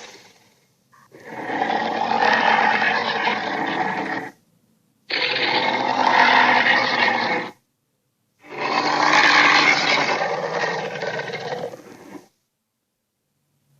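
Acrocanthosaurus sound-effect roars: three long calls, each two to four seconds long, with short silences between them. The second one starts abruptly.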